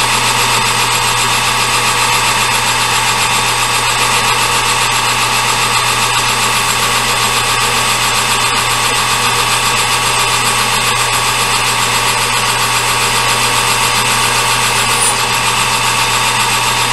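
Metal lathe running steadily, turning down a metal billet under a cut. It makes an even machine drone with a low hum and several high steady tones.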